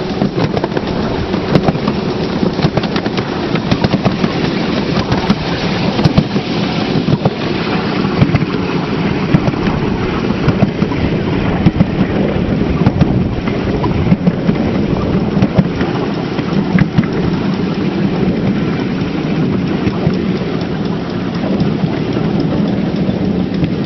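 A 7¼-inch gauge miniature railway train running along the track: a steady rumble with many rapid clicks and rattles.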